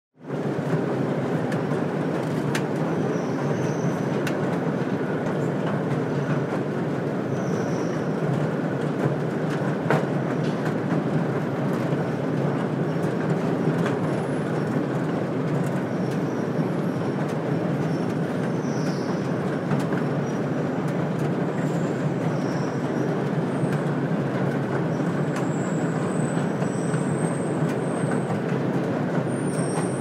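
Escalator running: a steady mechanical rumble with a few sharp clicks and faint, short high squeaks.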